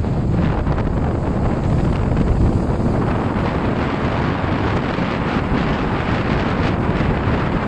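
Strong wind buffeting the microphone over the steady rush of heavy surf at high tide, the noise growing fuller and brighter about three seconds in.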